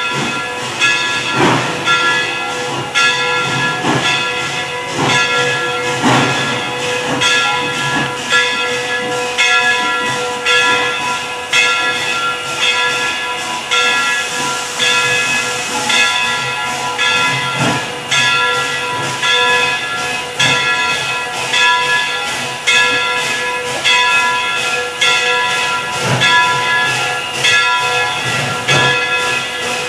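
Steam locomotive Central Railroad of New Jersey #113 approaching slowly: steam hissing, with a bell ringing steadily at roughly three strikes every two seconds.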